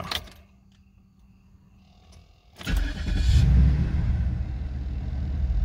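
Cadillac DeVille's V8 cranking briefly and firing up nearly three seconds in, then idling steadily after a quiet first couple of seconds.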